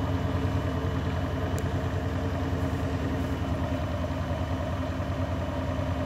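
Grundig front-loading washing machine on a short intermediate spin with an unbalanced load of towels: the drum spins with a steady low rumble that throbs fast and evenly as the off-balance drum makes the machine wobble.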